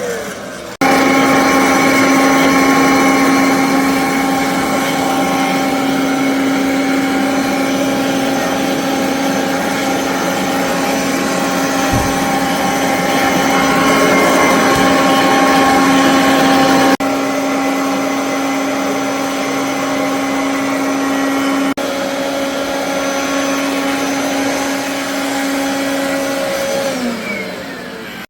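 Kirby vacuum cleaner's motor running with a steady whirring hum. It starts up about a second in and winds down in pitch near the end.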